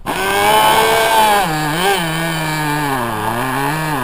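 Small two-stroke glow engine (an SH .07 nitro car engine converted for a model plane) running on the ground. It comes in suddenly, settles lower after about a second and a half, and its pitch wavers up and down.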